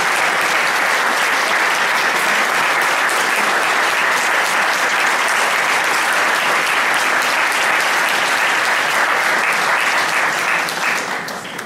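Audience applauding, a long, dense round of clapping that holds steady and then dies away near the end.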